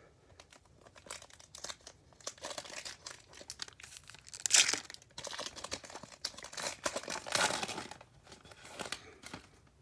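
Foil trading-card pack being torn open and crinkled by hand, an irregular run of crackling with the loudest rips about four and a half and seven and a half seconds in.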